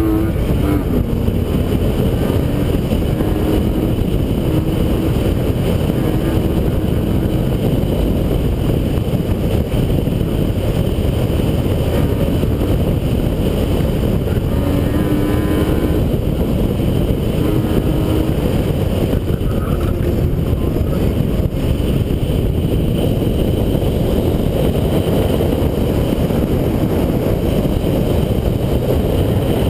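BMW 328i being driven hard through an autocross course: a steady, loud rush of engine, tyre and wind noise. Short steady tones break through now and then.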